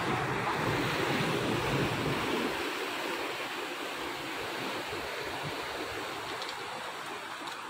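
Sea surf washing and breaking against the rocks below a cliff, a steady rushing noise, with a low wind rumble on the microphone that stops about two and a half seconds in.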